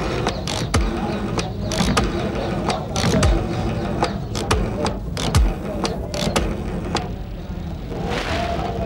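Rotary dial of a payphone being dialled: several digits in turn, the dial turned and clicking and ratcheting back each time.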